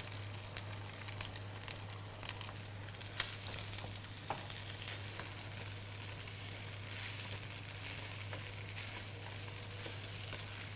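Boiled rice and egg frying in a hot non-stick wok with a steady sizzle, while a slotted spoon turns the rice and now and then taps or scrapes against the pan.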